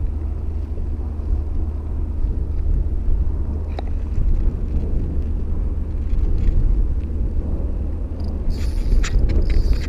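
Wind buffeting the camera microphone: an irregular low rumble that rises and falls throughout, with a brief high hiss and a few clicks near the end.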